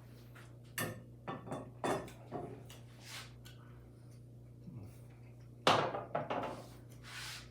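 Knife and fork clinking and scraping against a plate during eating, a scatter of short knocks with the loudest clatter a little before the end.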